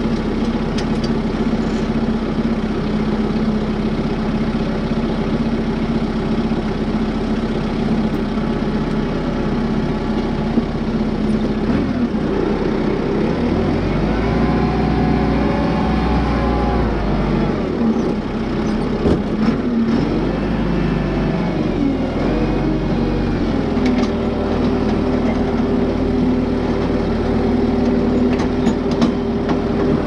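Kubota M6060 farm tractor's diesel engine running steadily, its note rising and falling a few times in the middle as the tractor works a rear grading blade.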